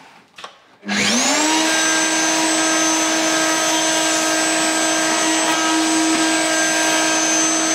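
Electric router with a flush-trim bit, spinning up about a second in and then running at a steady high speed with a high whine.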